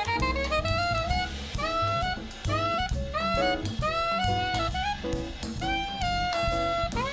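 Alto saxophone soloing in a small jazz group, phrases of notes often scooped up into pitch, over walking double bass, drum kit with cymbals, and piano accompaniment.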